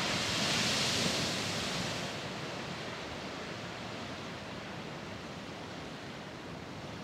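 Morning Geyser erupting: a burst of water and steam rushing loudly for about the first two seconds, then settling to a steady rush.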